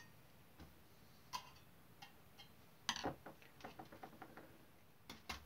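Faint, scattered light clicks and taps as the sheet-metal tender body and small tools are handled on the workbench, with a quick run of small ticks around the middle.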